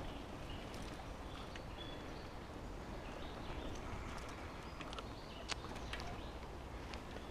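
Bicycle riding along a path: a steady low rumble of tyres and wind, with occasional sharp clicks and rattles, the sharpest about five and a half seconds in, and a few faint high chirps.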